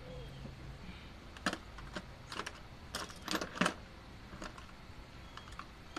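A quick run of sharp little clicks and taps, about eight in two seconds, like metal parts or tools being handled, over a low steady hum.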